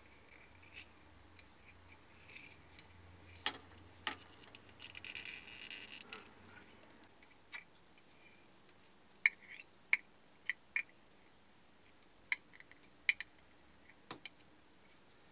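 Sparse small clicks and taps from hands handling a metal screw-top jar lid fitted with a thread-wrapped metal tube, with a short scratchy rustle about five seconds in.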